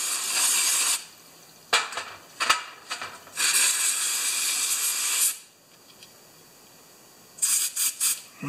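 Aerosol spray can fired through a thin straw nozzle onto small carburetor parts, in bursts. A long hiss stops about a second in, another runs from about three to five seconds, and several short spurts come near the end, with a few clicks and taps in between.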